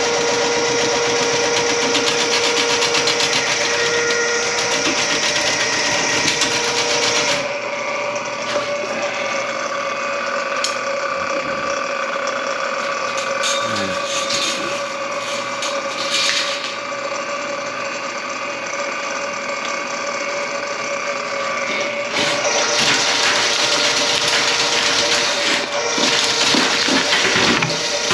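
A small electric motor running steadily with a hiss over it. The hiss is loudest for the first seven or so seconds, drops back, then rises again near the end.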